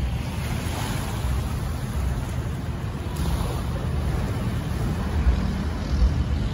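Gusty wind rumbling on the microphone over the steady wash of the sea.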